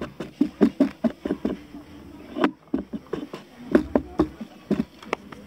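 Cyclocross bike rattling and knocking as it jolts over rough ground: an irregular run of sharp clatters, several a second, with the loudest about halfway through.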